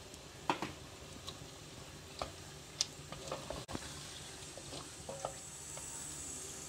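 Raw boneless chicken sizzling in hot oil and masala in a clay handi while a wooden spatula stirs it, with a dozen or so light clicks as the spatula knocks and scrapes the clay pot. The frying hiss is soft and steady, growing slightly louder towards the end.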